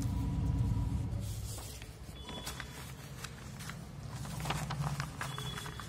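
Sheets of paper being handled and turned, with a few short rustles over a low, steady hum.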